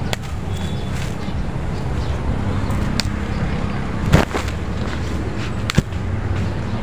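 Moringa branches being pulled and snapped off by hand, with a few sharp snaps and leaf rustling, the loudest snap about four seconds in, over a steady low rumble of wind on the microphone.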